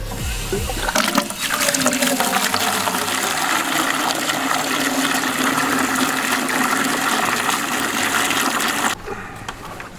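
Water running hard into a container, a steady rush that starts about a second in and shuts off suddenly near the end.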